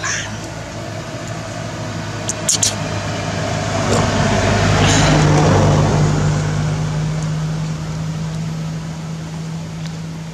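A motor vehicle's engine running with a steady low hum, growing louder to a peak about halfway through and then easing off. A few sharp clicks come about two and a half seconds in.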